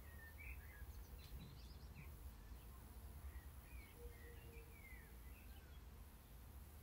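Faint birdsong: small birds giving short, scattered chirps over a low steady rumble.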